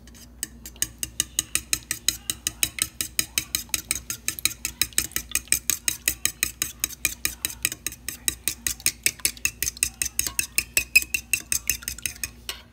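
A fork beating three raw eggs in a mixing bowl: rapid, even clicking of the fork against the bowl, about six strokes a second. It starts about half a second in and stops just before the end.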